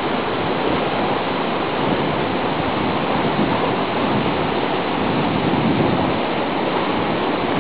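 Waterfall crashing into its pool close by: a steady, loud rush of falling water.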